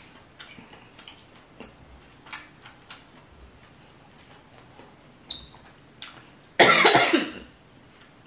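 Faint mouth clicks and smacks while eating, then, about six and a half seconds in, one loud cough lasting under a second, brought on by the spicy seafood-boil sauce.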